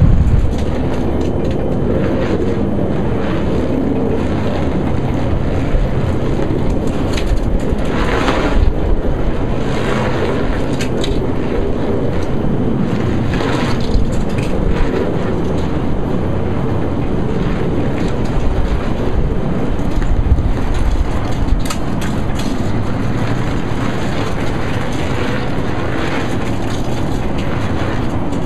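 Strong wind buffeting the microphone: a steady, heavy rumble with a few sharper gusts in the first half.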